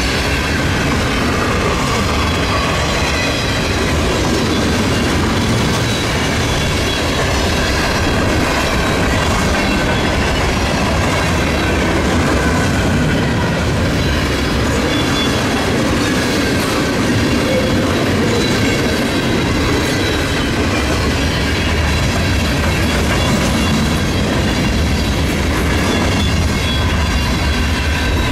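Canadian Pacific freight train rolling past at close range, its cars' wheels clicking over the rail joints, with a faint steady squeal from the wheels.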